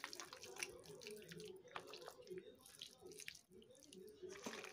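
Faint wet squelching and small clicks of a hand mixing raw chicken pieces in a thick yogurt-and-spice marinade in a steel bowl.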